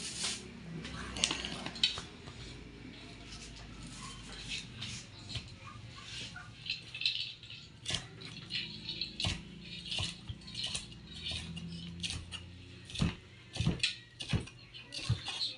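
Kitchen knife and utensils tapping and clattering against a cutting board and dishes, in irregular clicks and knocks with a few louder ones near the end, as red pepper is sliced. A faint low steady hum runs underneath.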